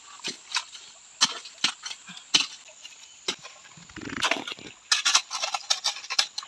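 Small shovel digging into wet riverbank clay, striking it in irregular sharp chops and scrapes. About four seconds in, a shovelful of mud is dumped into a wire sieve set in a plastic gold pan, followed by more quick strikes.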